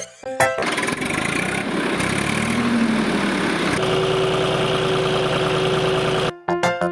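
Small motor of a DIY miniature tractor running steadily, a dense mechanical whirr with a steady whine setting in about halfway through.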